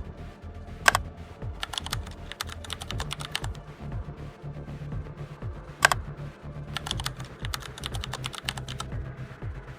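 Background electronic music with a steady beat: a deep bass line, drum hits, quick runs of clicks, and a sharp hit about every five seconds.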